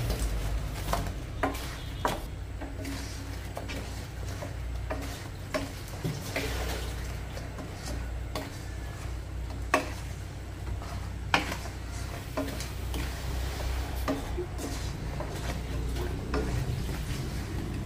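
Wooden spatula stirring and tossing fried chicken pieces in honey-soy glaze in a non-stick wok, with repeated knocks and scrapes against the pan and a soft sizzle of the glaze. Two sharper knocks come a little past the middle, over a low steady hum.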